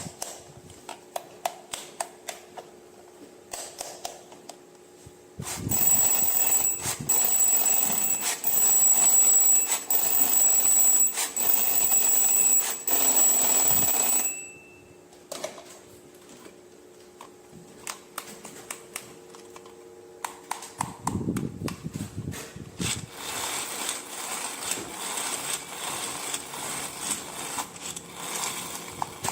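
Plastic toy pieces and packaging handled, clicking and rattling. From about six seconds in until about fourteen, a loud, high, steady electronic ringing pulses regularly, typical of a battery-powered toy's sound effect.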